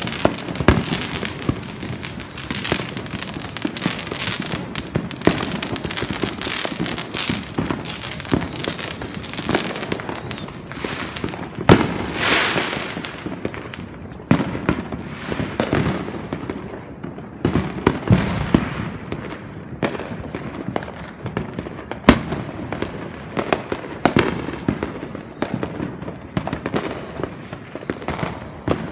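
Many fireworks and firecrackers going off at once: a dense, unbroken barrage of bangs, pops and crackles, with a sharper, louder bang about twelve seconds in and another about twenty-two seconds in.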